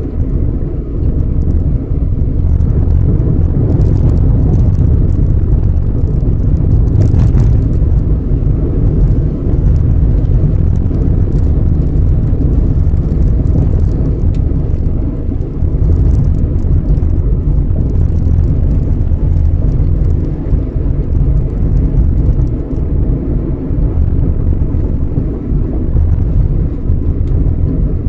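Steady low rumble of a car driving on city streets, engine and tyre noise heard from inside the cabin, with faint scattered ticks.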